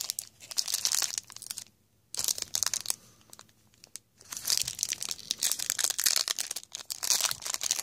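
Foil trading-card pack wrapper crinkling as hands pull it open, in bursts of crackly rustling with two short quiet breaks, about two and three to four seconds in.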